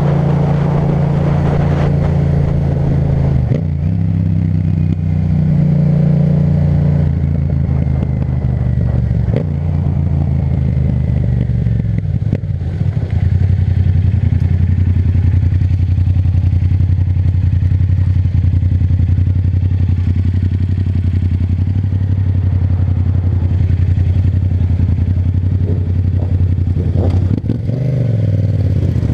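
Yamaha MT-07's 689 cc parallel-twin engine running through an Akrapovic titanium exhaust while ridden, a steady low engine note that changes pitch a few times as the revs go up and down.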